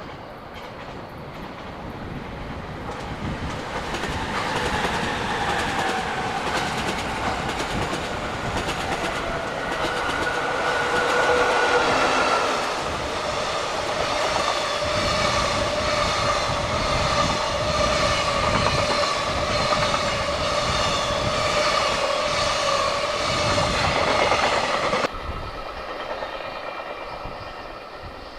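EF65 electric locomotive hauling a container freight train past, with a humming tone that falls in pitch and then holds steady, and wagon wheels clacking over the rail joints. The sound drops off suddenly near the end.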